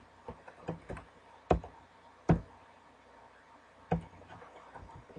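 Computer keyboard keystrokes: a handful of separate key clicks typed slowly one at a time, three of them much louder than the rest.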